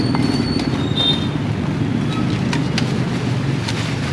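Cleaver chopping roast pork on a wooden chopping block: several sharp knocks, most of them in the second half, over a steady low rumble of street noise. A brief high-pitched squeal sounds in the first second or so.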